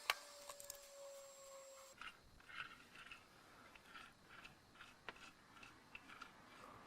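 Faint workshop handling of small metal parts: a sharp click with a brief ringing tone just after the start, then light scratchy strokes, about two or three a second.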